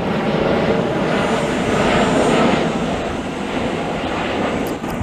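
Twin-engine Boeing 777 airliner passing overhead, its jet engines giving a loud, even roar that swells to its peak about two seconds in and then eases off.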